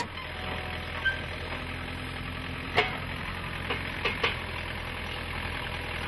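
JCB 1CX compact backhoe loader's diesel engine idling steadily, with a few short sharp knocks near the middle as the pallet fork attachment is handled.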